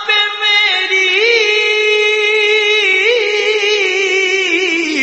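An Urdu naat (devotional song) sung by one voice, holding one long note with two brief wavering turns.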